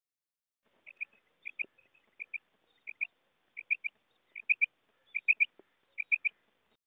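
Female common quail calling: short, high notes in quick groups of two or three, repeated about every three-quarters of a second, starting about a second in.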